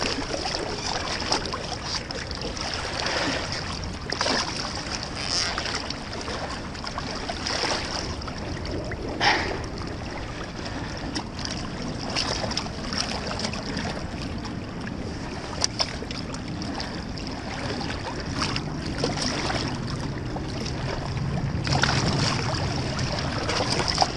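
River water splashing and sloshing as a large wels catfish is grappled by hand at the water's edge, with frequent short splashes over a steady wash of moving water.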